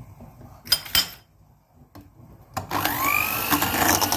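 A couple of knocks, then about two and a half seconds in an electric mixer switches on, its motor whine rising as it spins up, and runs steadily, beating eggs, sugar and yogurt into cake batter.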